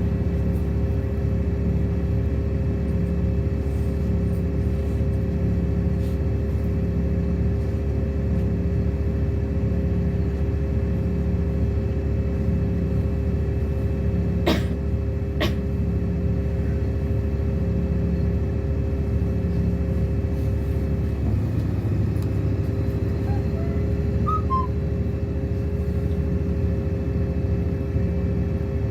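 Inside a LiAZ-6213.65 articulated city bus under way: steady engine and drivetrain rumble with a constant whine, and a low tone pulsing on and off about every second and a half. Two sharp knocks about a second apart come midway, and the whine briefly dips and recovers a little after two-thirds in.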